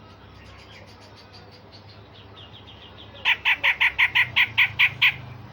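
Cucak jenggot (grey-cheeked bulbul) singing: soft, fast chattering, then a burst of about ten loud, sharp repeated notes at about five a second. These are the hard 'tembakan' shots that bird keepers train for.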